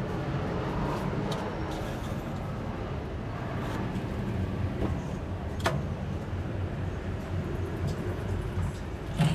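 Steady low mechanical rumble with a few sharp clicks, the clearest about five and a half seconds in and another near the end.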